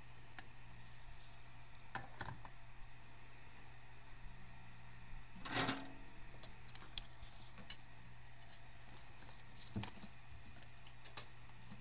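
Scattered faint clicks and knocks of a soldering iron and a circuit board being handled and set down on a wooden workbench, with one louder knock about halfway and another near the end, over a steady low electrical hum.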